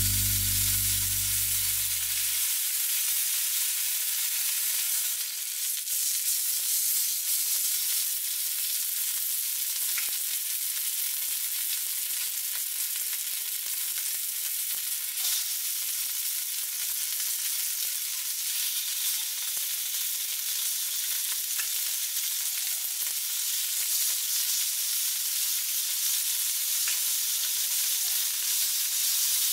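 Marbled beef steak searing on a hot carbon-coated Daiso iron griddle, sizzling steadily, with a few sharp pops now and then.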